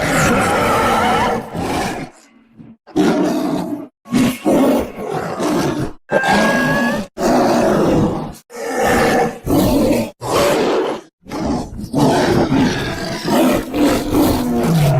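Saber-toothed cat (Smilodon) creature sound effects: a string of separate roars and growls, each a second or two long with short breaks between them, and a longer roar near the end.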